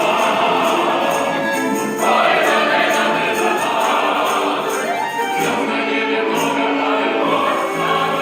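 A choir singing a Gypsy-style song over instrumental accompaniment with a steady beat.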